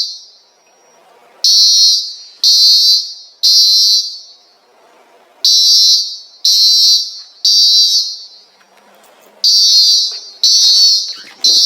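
School fire alarm horn sounding in the temporal-three evacuation pattern: three loud, high-pitched blasts about a second apart, then a short pause, repeated three times.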